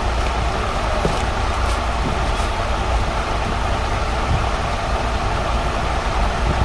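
Steady background machine hum with hiss, strongest in the low end, and a few faint ticks between about one and two and a half seconds in.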